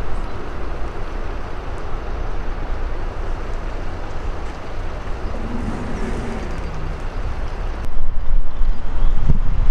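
Wind blowing across the microphone with a low outdoor rumble, and a faint brief hum about six seconds in; the wind grows louder and gustier near the end.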